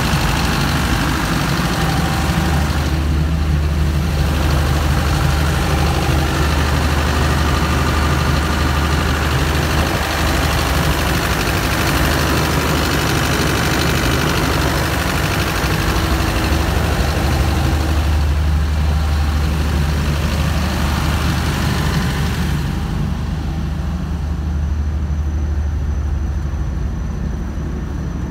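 Scania DC16 16-litre V8 diesel engine of a 550 kVA generator set running steadily at constant speed, heard up close. Near the end the sound turns duller and slightly quieter, as heard from outside the steel enclosure.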